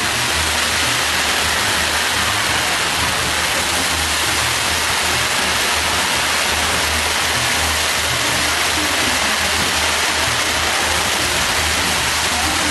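Castillo fireworks tower burning with a steady hiss of spraying sparks, with no bangs. Music with a steady low beat plays underneath.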